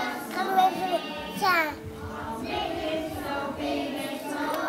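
A group of preschool children singing a song together. About a second and a half in, one voice slides steeply down in pitch.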